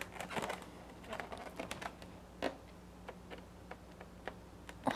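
Black Sharpie marker tip dabbing dots onto an inflated latex balloon: faint, irregular quick taps, some in rapid clusters.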